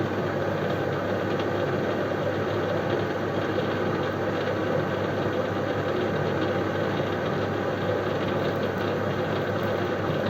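Metal-turning lathe running steadily in reverse, unwinding a threading die off a freshly cut thread.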